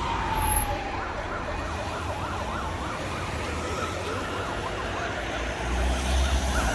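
Several fire-engine sirens wailing together, their rising and falling tones overlapping. A long falling siren tone ends about a second in, and a low engine rumble swells near the end.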